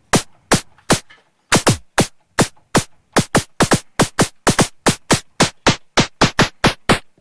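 Synthesized snare drum from a Eurorack modular patch: the Feedback Static module's transistor noise shaped by a short VCA envelope and layered with a self-resonating filter transient, firing in a quick repeating pattern of short, sharp hits that gets busier after about a second and a half.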